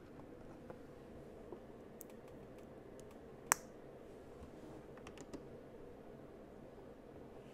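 LEGO plates and tiles clicking and tapping as they are pressed by hand onto a LEGO baseplate: a few light clicks, one sharper snap about halfway through and a small cluster of clicks after it, over a steady low hum.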